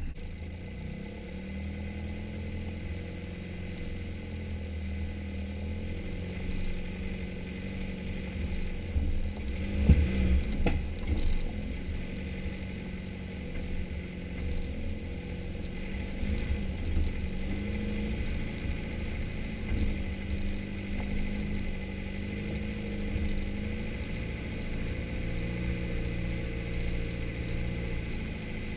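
Four-wheel drive's engine running steadily at low revs as it crawls over a rocky off-road track, with clattering from the vehicle and one sharp knock about ten seconds in.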